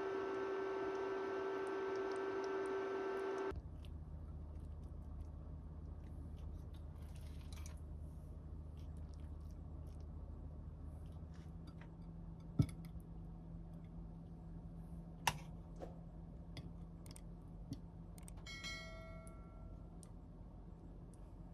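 A steady pitched hum for the first few seconds, then, after a cut, a quieter low hum with a spoon clicking and scraping on a plate as rice and curry are dished up, a few sharp taps and a brief ringing tone near the end.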